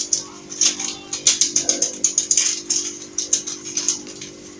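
A kitchen utensil clicking and tapping against a bowl in quick, irregular strokes over a steady low hum.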